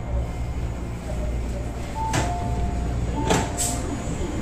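MTR East Rail Line MLR train's sliding passenger doors opening at a station: a falling two-note chime with a clunk about two seconds in, then another falling two-note chime with two more clunks a second later, over the steady low hum of the stopped train.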